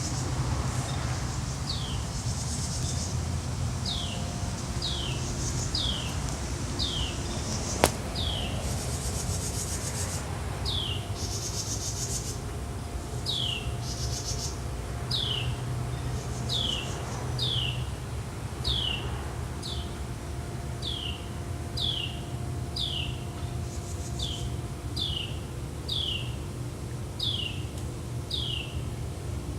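A bird scolding over and over, each call a short note sliding down in pitch, about one a second, the alarm calls of a parent bird at a cat. Bursts of high hiss come between the calls, over a steady low rumble, with one sharp click about 8 seconds in.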